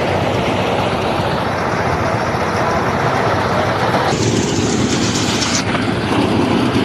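Engine-driven rice threshing machine running steadily under load, with a brief hiss that rises over it a little past the middle and then stops.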